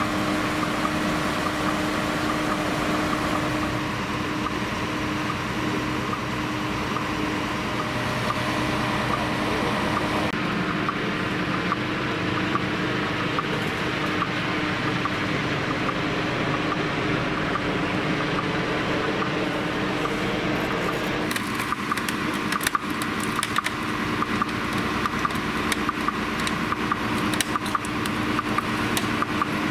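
Steady hum of idling emergency-vehicle engines at a road-crash scene. In the middle stretch comes the more distant sound of a rescue helicopter flying in. In the last third, many sharp clicks and knocks from the rescue work on the car.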